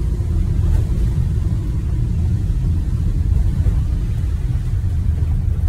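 Steady low rumble of a U-Haul cargo van being driven, road and engine noise heard inside the cab.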